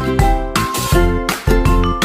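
Upbeat background music with a steady beat of about three strokes a second and bright plucked notes.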